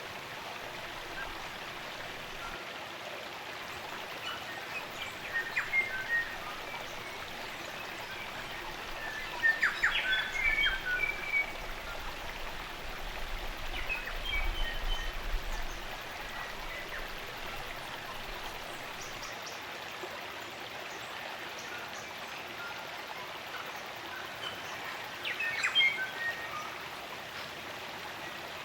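Steady rush of a spring-fed stream, with New Zealand native forest birds calling in short bursts of chirps and whistles. The bird calls are loudest about ten seconds in and again near the end.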